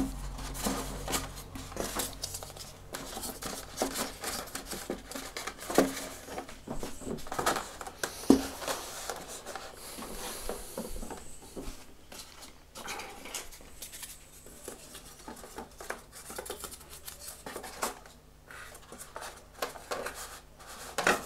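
Hands handling and pressing together EPO foam parts of a delta-wing RC plane kit on a table: irregular taps, clicks and rubbing of foam and plastic.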